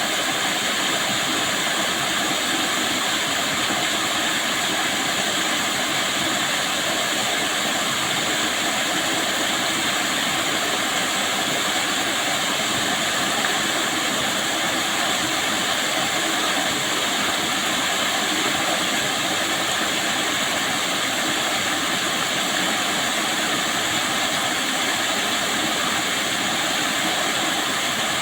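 Waterfall rushing steadily, an even, unbroken roar of falling water.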